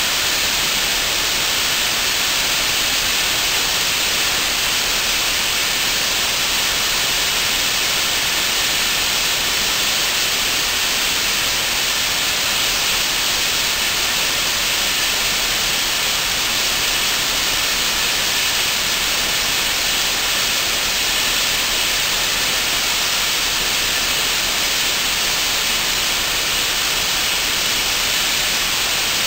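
Steady, unbroken hiss of escaping steam from a standing steam locomotive, with no exhaust beats, so the engine is not moving.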